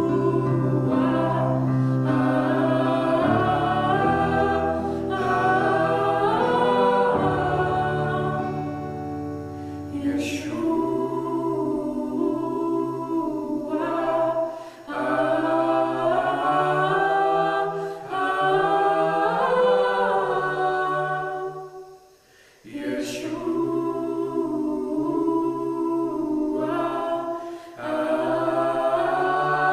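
A young woman and a young man singing a worship song together at microphones, accompanied by stage piano and acoustic guitar. The music stops for a moment about three quarters of the way through, then the singing resumes.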